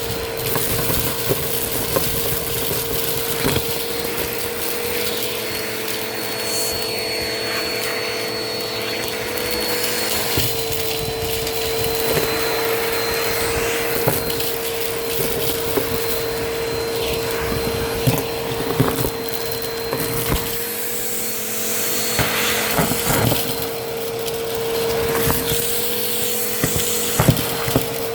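Vacuum cleaner running steadily with a constant motor whine, and scattered sharp clicks and crunches as debris is sucked up.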